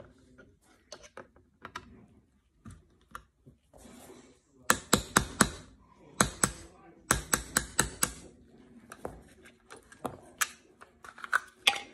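Sharp metallic clicks in quick runs of three or four from an HK P30 pistol's hammer and trigger mechanism being worked by hand, with quieter handling noise between. The trigger is dead after a short reset kit install and is being checked.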